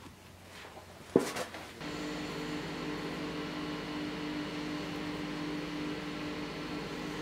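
A sharp click about a second in, then a steady machine hum with a low, even drone starts up and runs on, like a fan or motor running.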